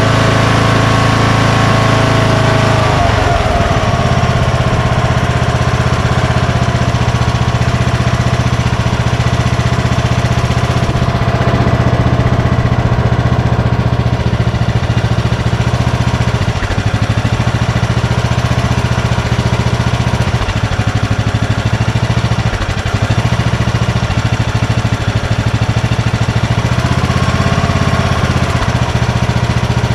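Craftsman lawn tractor's engine running on a replacement Walbro carburetor while the carburetor is adjusted with a screwdriver. Its speed shifts about three seconds in, then holds steady.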